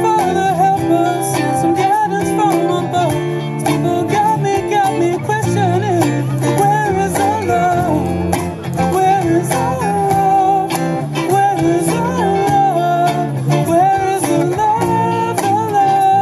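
A man singing a melody while strumming an acoustic guitar, in a live solo performance.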